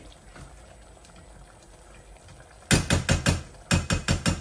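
A wooden spoon knocking against a stainless steel cooking pot: a quick run of about eight sharp knocks in the last second and a half.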